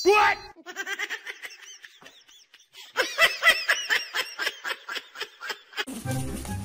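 Short, high-pitched squeaky vocal sounds in quick runs of about five a second. One loud call opens it, a sparse run follows, and a denser, louder run starts about three seconds in.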